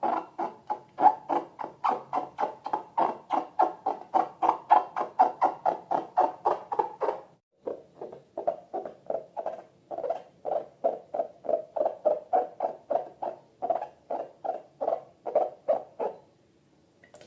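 Slime being squeezed and kneaded by hand, squelching in an even rhythm of about three squishes a second. It breaks off briefly about seven seconds in and stops shortly before the end.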